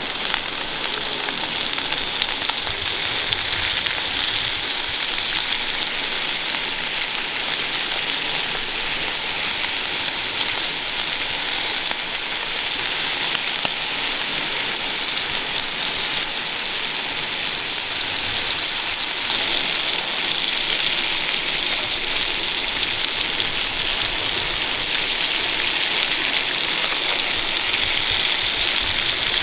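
Sirloin steak sizzling in a hot pan over a campfire, a steady frying hiss.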